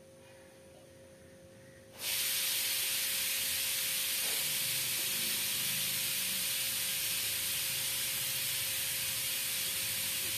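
A loud, steady hiss of noise starts suddenly about two seconds in and cuts off just as suddenly near the end.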